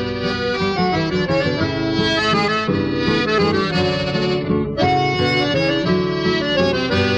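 Instrumental sertanejo raiz (caipira) music with no singing, an interlude between sung verses: a sustained accordion-like lead over plucked strings. The higher notes drop out briefly about four and a half seconds in.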